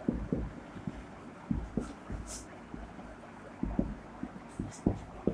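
Marker pen writing on a whiteboard: irregular soft knocks of the pen tip and board, with a few short scratchy strokes of the felt tip.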